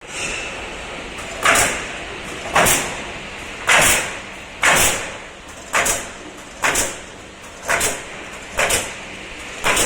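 CNC pallet nailing machine at work: about once a second a sharp pneumatic shot with a short hiss of air, nine in a row, over a steady machine hum.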